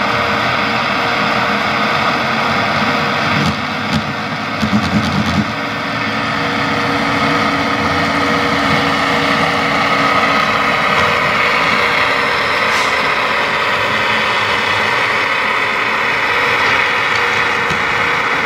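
DCC sound decoder in a model Class 66 diesel locomotive playing its diesel engine sound through the model's small speaker, running steadily as the locomotive moves.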